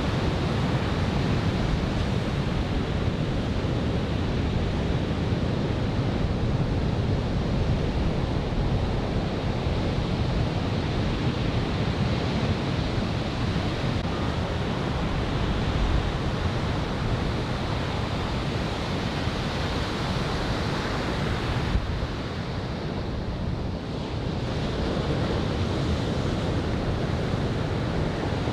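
Ocean surf washing onto a beach under an onshore wind, with wind buffeting the microphone; a steady, dense rush of noise that eases briefly a little past twenty seconds in.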